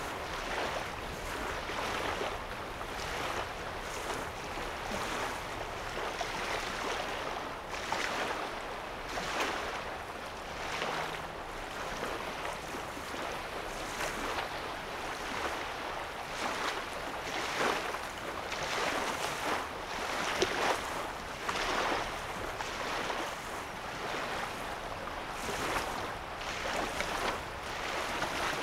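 Small lake waves lapping at a sandy shoreline, a soft splash every second or two over a steady watery wash.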